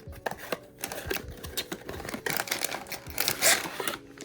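Blind-box packaging being handled and opened: a run of small clicks and taps, with crinkling and rustling that grows denser in the middle.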